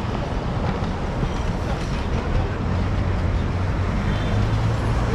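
Street traffic heard from a moving e-bike, with wind rumbling on the microphone. A low engine hum from a large vehicle close by grows stronger over the last couple of seconds.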